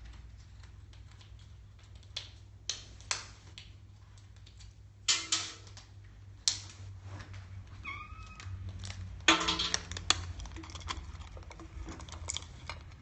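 Blue-and-gold macaw rummaging with its beak in a stainless steel food bowl, giving scattered clicks and short clattering bursts. The loudest bursts come about halfway through and again about two-thirds of the way through. A short call about 8 seconds in.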